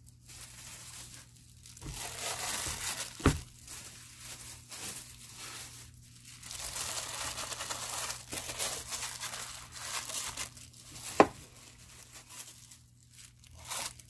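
Thin disposable plastic glove crinkling as a hand moves chunks of raw pork belly into a rice cooker's inner pot, with on-and-off rustling. A sharp knock comes about three seconds in and a louder one about eleven seconds in.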